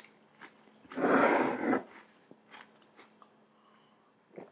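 A bite into a crisp potato chip: one crunch lasting under a second, about a second in, then a few faint clicks of chewing.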